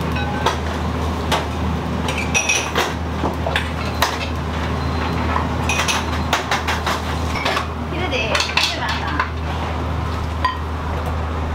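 Kitchen clatter: metal utensils and dishes clinking and knocking at irregular intervals, over a steady low hum.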